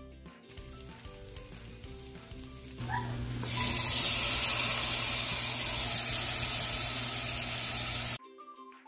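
Loud, steady sizzling as green beans and their liquid go into a hot saucepan, starting about three seconds in and cutting off abruptly near the end. Faint background music before it.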